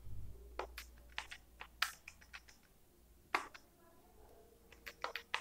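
Faint, irregular clicks of calculator keys being pressed as a sum is keyed in.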